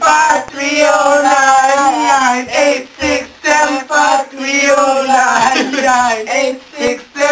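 Several young male voices singing loudly together, without backing music, in phrases broken by short pauses.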